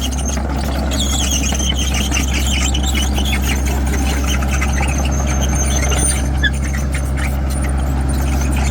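Caterpillar 312 hydraulic excavator at work: its diesel engine runs steadily under a high-pitched metallic squealing that wavers throughout.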